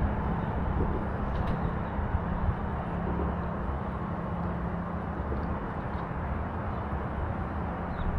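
Steady outdoor background noise: a low, even motor hum under an irregular low rumble of wind on the microphone.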